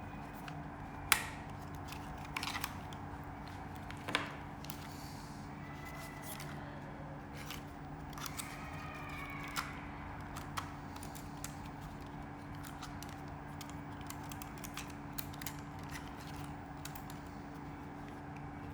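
Hands handling drone packaging and parts: scattered sharp clicks and light scrapes, the loudest click about a second in and another about four seconds in, over a steady low hum.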